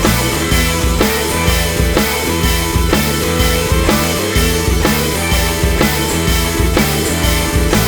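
Rock music with a steady drum beat and bass.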